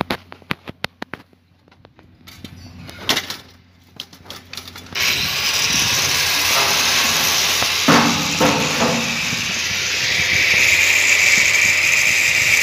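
Scattered clicks and taps from handling sheet metal. About five seconds in, a cordless drill starts running steadily, driving screws into a galvanized sheet-metal damper frame, and a higher whine joins about ten seconds in.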